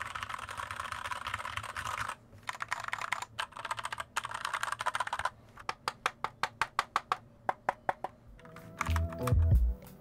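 Typing on a 60% mechanical keyboard with stock tactile Gateron Brown switches in a plastic case: a fast run of keystrokes, then a slower string of separate clicks about four a second. Background music comes in near the end.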